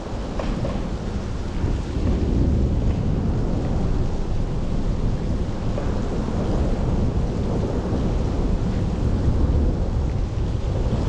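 Heavy rain falling steadily, with a deep continuous rumble underneath that swells a little twice.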